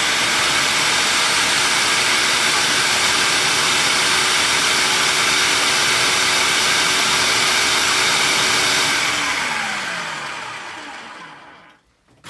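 Black+Decker food processor running steadily, blending hummus to a smooth paste. About nine seconds in it is switched off and the motor winds down, its pitch falling until it stops.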